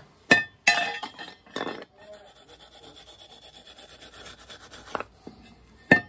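Metal gas burner tubes clinking and knocking as they are handled and set down: a few sharp clinks, some with a short ring, with faint scraping in between.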